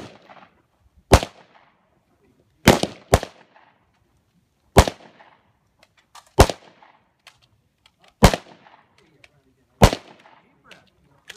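Seven single gunshots, spaced roughly one and a half to two seconds apart, with two fired close together about three seconds in. Each sharp crack trails off in a short echo.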